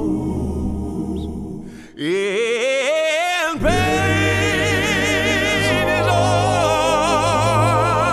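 Recorded choral vocal music. First comes sustained accompaniment; then, about two seconds in, a solo voice with wide vibrato glides upward. About three and a half seconds in, a full layered choir of voices enters over a deep sustained bass.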